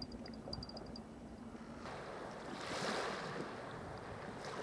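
Wind gusting and small waves washing at the water's edge, swelling strongest about three seconds in. A run of faint, short, high pips sounds in the first second.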